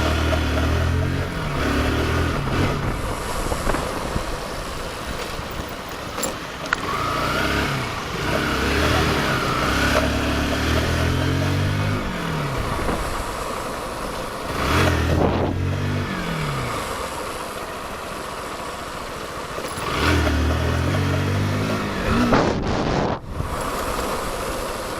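Kawasaki motorcycle engine accelerating through the gears about four times, the revs climbing in steps and then falling away as it slows, with steady wind noise over the microphone.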